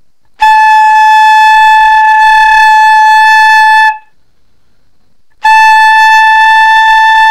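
Flute head joint blown on its own with its open end uncovered, sounding two long held notes close to A, the second starting about five seconds in. The pitch is hard to hold exactly on A and sags toward G sharp when the breath weakens.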